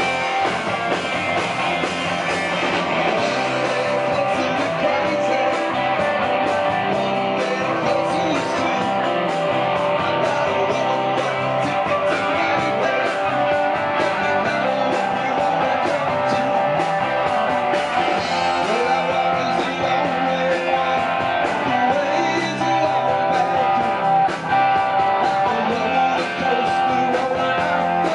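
Live rock band playing: electric guitars, bass guitar and drums, with a man singing into the microphone.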